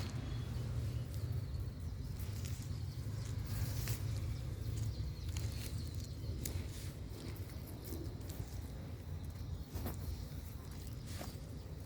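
Hands rustling and scraping through potting soil as potatoes are dug out of a grow bag. Scattered small clicks and crunches sit over a steady low rumble.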